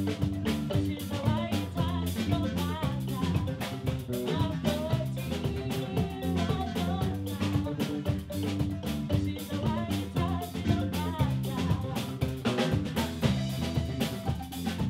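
Southern African fusion band playing live: wooden marimbas struck with mallets over a drum kit beat and bass guitar, with a woman singing.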